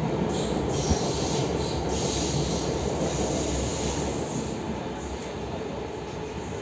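Inside a moving RER C commuter train car: a steady rumble of the train running on the track, with a high squeal of the wheels on the rails over the first four seconds or so and a single click about a second in, the noise easing a little after the squeal fades.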